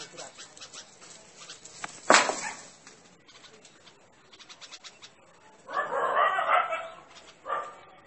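A bulbul giving harsh alarm calls. There is one loud, sharp call about two seconds in, a longer harsh burst lasting over a second near the end, and a short one just after it.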